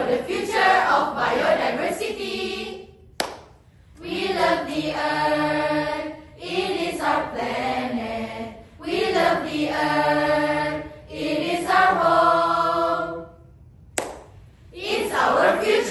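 A group of young voices singing together in chorus, in held phrases of about two seconds with short breaks between them.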